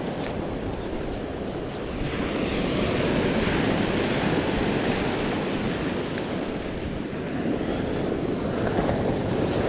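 Sea surf washing onto a beach, a steady rush of waves that grows louder about two seconds in and again near the end, with wind buffeting the microphone.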